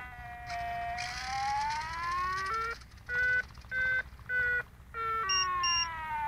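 Electronic variometer tone from the glider's telemetry, whose pitch follows the glider's climb and sink: a steady tone that dips and then rises in pitch, breaks into three short beeps around the middle, then falls steadily in pitch near the end.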